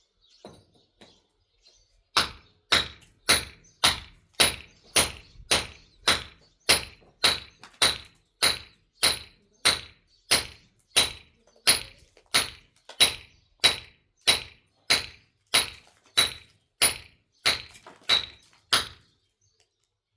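Steady, evenly paced striking, a little under two strikes a second for about seventeen seconds, each blow with a short metallic ring, then it stops.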